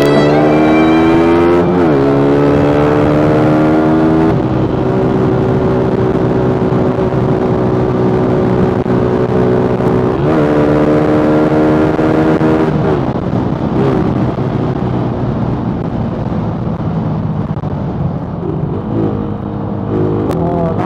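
Suzuki Raider R150 motorcycle engine pulling under way. Its pitch climbs, dips briefly about two seconds in and again around ten seconds in as gears change, then holds steady at cruising speed.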